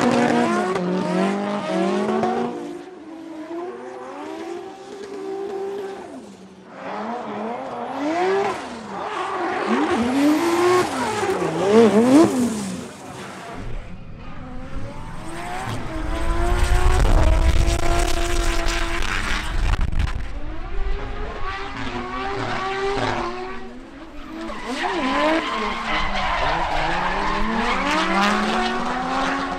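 Drift cars with engines revving hard and repeatedly rising and falling in pitch as the drivers work the throttle, over the screech of tyres sliding sideways. Several separate clips are cut together, one with a heavy low rumble in the middle.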